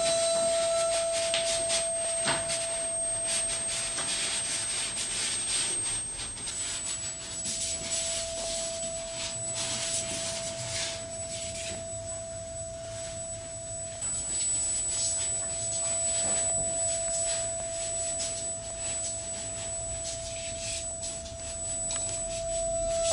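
Experimental noise music: a steady pure tone is held throughout, with a faint high whistle above it, under irregular scraping and rubbing noises that are busiest in the first half.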